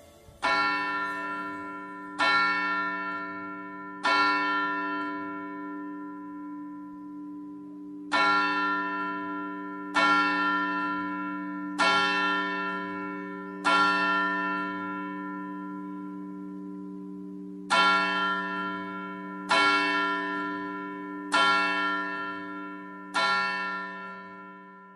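A single church bell tolling slowly, struck about once every two seconds, each stroke ringing on and fading. The strokes come in a group of three, then two groups of four, with a pause of about four seconds between groups.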